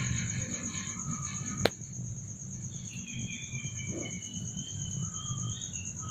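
A steady, high-pitched pulsing insect call, with a single sharp click about a second and a half in and small birds chirping in the second half.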